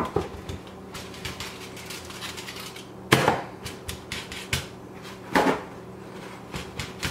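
Hands patting raw baby back ribs dry with paper towels: repeated soft pats and paper rustling, with two louder rustles about three and five and a half seconds in. A faint steady hum sits underneath.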